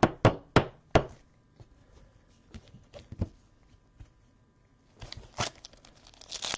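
Trading cards and a plastic card holder being handled on a table: four sharp taps within the first second, a few lighter clicks, then plastic crinkling from about five seconds in.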